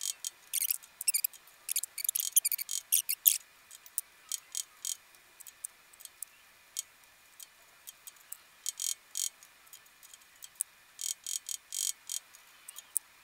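Light, quick hammer taps on a steel workpiece held in a lathe's four-jaw chuck, coming in clusters: dense for the first few seconds, sparse in the middle, then more groups near the end. The taps bump the work toward zero runout on a dial indicator.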